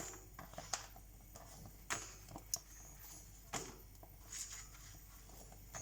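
Faint, scattered crackles and rustles of a papad roasting and blistering as it is turned over a gas flame, about six small clicks over a few seconds.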